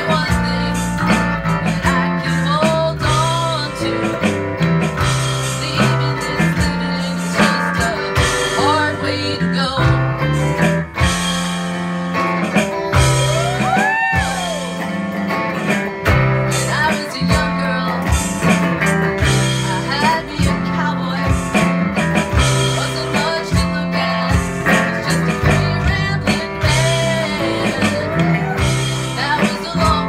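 Live band playing a blues-rock song: electric guitar with bent notes and a strummed acoustic guitar over a low bass line, with a woman singing.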